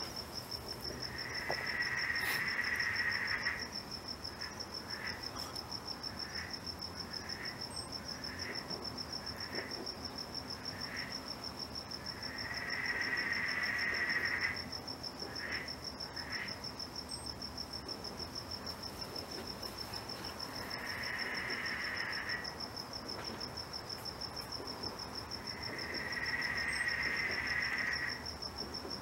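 Night insects calling: a cricket trilling steadily on one high pitch throughout, with a second, lower buzzing call in four bursts of about two seconds each and short chirps scattered between them.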